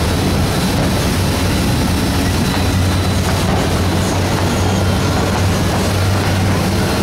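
Motorboat engine droning steadily while under way, over a constant rush of wind and water.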